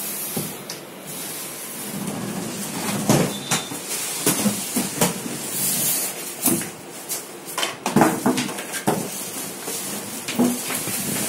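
Packing being handled in a cardboard box: polystyrene foam blocks and plastic wrap rustling and scraping, with irregular knocks.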